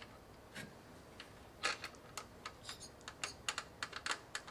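Light, irregular clicks and taps of small cooler-mounting hardware being handled and refitted by hand: a single click about half a second in, then a quick run of small clicks from about a second and a half in.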